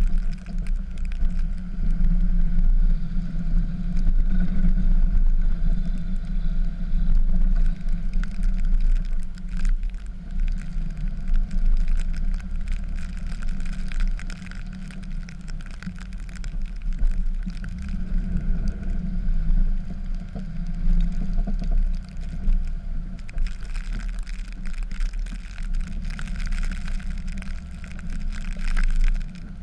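Dodge pickup's Cummins straight-six turbodiesel running under load while plowing snow: a steady low drone that swells and eases every few seconds.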